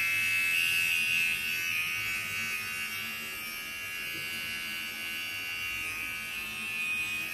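Wahl Mini Arco cordless pet trimmer running with a steady high-pitched electric buzz as it clips the fur around a puppy's paw pads, a little louder for the first couple of seconds and then somewhat quieter.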